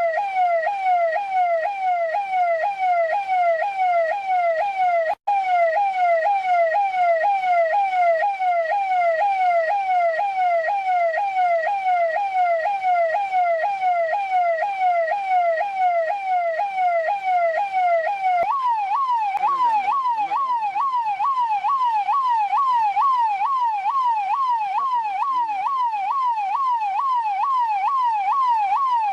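Russian police car's electronic siren in a fast yelp: a quick rising sweep that drops back and repeats about three times a second. It cuts out for an instant about five seconds in, and about two-thirds of the way through it switches to a slightly higher-pitched yelp.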